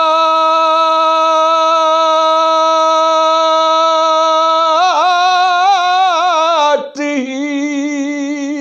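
A man singing a naat unaccompanied: one long held note, breaking into a wavering, ornamented run about five seconds in, then settling on a second, lower held note near the end.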